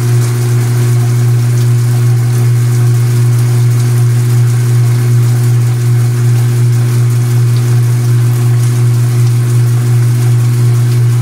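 Speed Queen top-loading washing machine spinning its basket, a steady unchanging motor hum, with a hiss of water streaming into the tub.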